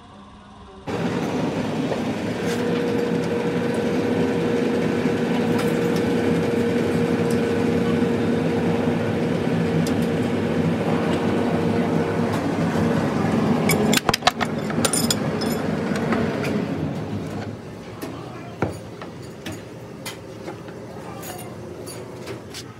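Hydraulic press's pump unit starting suddenly and running steadily with a humming tone. A few sharp metallic clanks come a little past halfway, then it falls to quieter workshop noise with scattered clicks.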